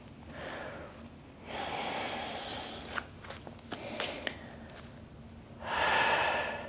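A woman breathing hard with effort, sighing and panting in a few long breaths: one about a second and a half in, and the loudest near the end. A few soft clicks come in between.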